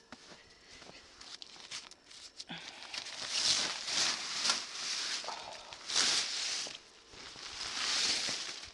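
Footsteps crunching through snow: a few faint clicks, then from about two and a half seconds in, louder irregular crunches.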